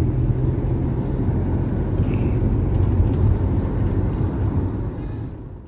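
Road and engine noise heard from inside a moving car: a steady low rumble that fades out near the end.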